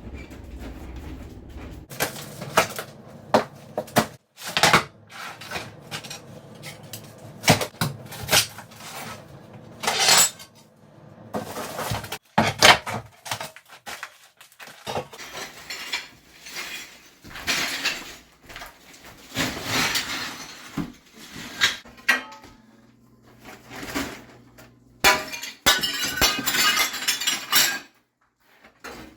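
Ceramic floor tiles being broken up and pried off, with repeated irregular sharp cracks and hard shards clattering and clinking against each other.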